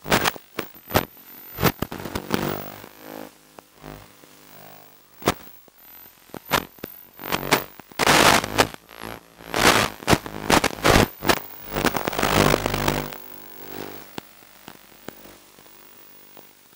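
Small RC model tank driving over rough ground: irregular clattering, knocks and scraping from its tracks and hull, with the roughest bursts from about halfway through, then quieter near the end.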